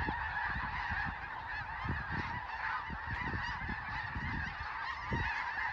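A huge flock of migrating geese in flight, hundreds of overlapping calls blending into one continuous din.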